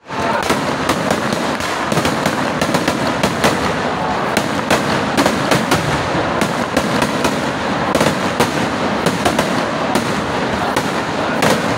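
A dense fireworks barrage: aerial shells and firecrackers going off without pause, many sharp bangs a second over a continuous crackle.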